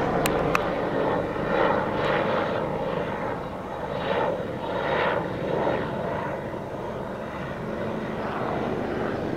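Small police helicopter in flight, its rotor making a steady beating that eases off slightly over the first few seconds.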